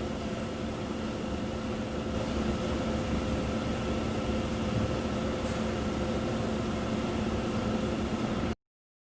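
Textile dyeing machinery running: a steady mechanical hum with several constant tones over a noisy rumble, cutting off abruptly near the end.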